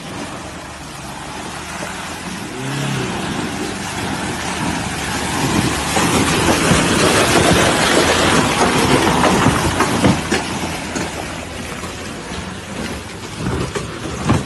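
Pickup truck's engine revving as it drives through deep mud, growing louder as it passes close by and then fading as it pulls away.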